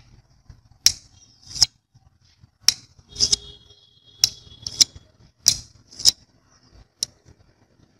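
A steel screwdriver shaft being worked along a loudspeaker's ring magnet to magnetize it, giving sharp metallic clicks, about nine of them, as the steel knocks against the magnet. A short metallic ring sounds a few seconds in.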